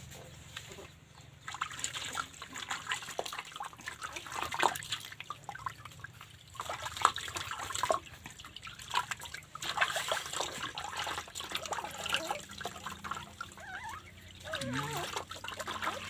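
Water trickling and splashing with irregular wet slaps and drips as a dog is washed in a bath.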